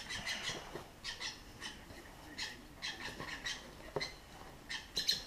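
Young hand-reared lovebirds giving short, repeated high chirps, about two a second, with wood shavings rustling under hands in a box and a sharp tap about four seconds in.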